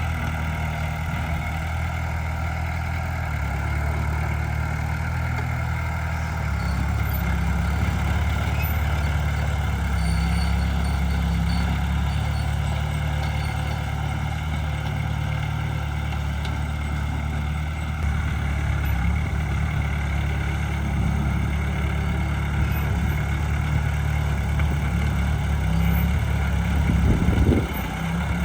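Heavy diesel engine of earthmoving machinery running steadily at a low pitch, a little louder in the second half, with a short louder surge near the end.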